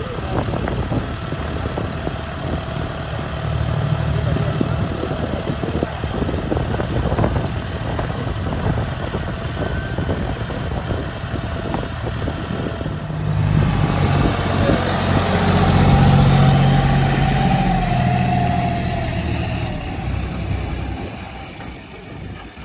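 Heavy diesel machinery engine running with a rattling clatter. About 13 seconds in it works harder and louder, with a whine that slides down in pitch, then eases off near the end.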